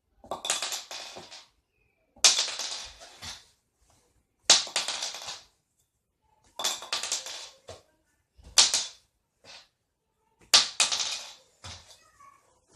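A .410 shotgun shell tossed and landing on a hard surface, clattering and rattling as it tumbles, six times about two seconds apart.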